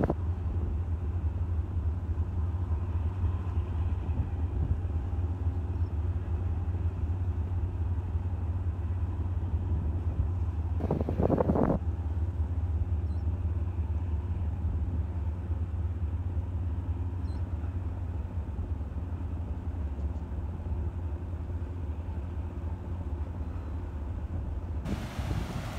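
Steady low engine rumble of a large car-carrier ship and its escort tug passing close. There is a short louder rush about eleven seconds in.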